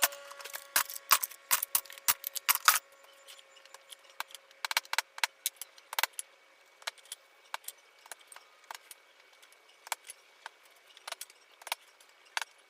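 Sped-up workshop sounds of wooden shutter parts and tools being handled during assembly: quick sharp clicks and knocks, packed close together for the first few seconds, then sparser and more scattered. A faint steady tone fades out early on.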